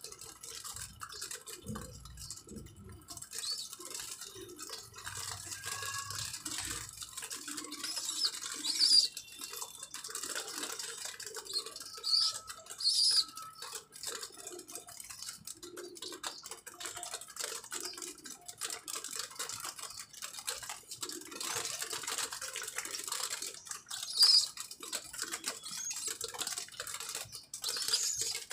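Handling noise from a racing homer pigeon held up close, its wing feathers spread and brushing against the handler's hands, a steady patter of rustles and scrapes. A few short, high sounds stand out as the loudest moments, about eight, twelve and twenty-four seconds in and again near the end.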